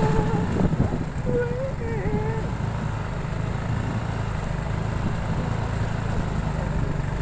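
A vehicle's engine running steadily as it drives slowly along a road. In the first two and a half seconds a voice calls out over it in long, rising and falling tones.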